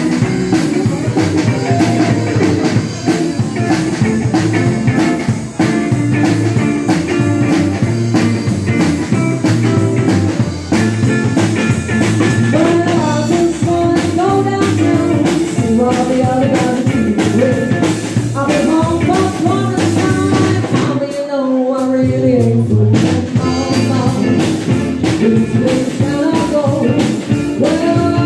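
Live band playing a bluesy rock-and-roll boogie number on electric guitar, drum kit and saxophone, with a woman singing. The drums and bass drop out for about two seconds around two-thirds of the way through, then the full band comes back in.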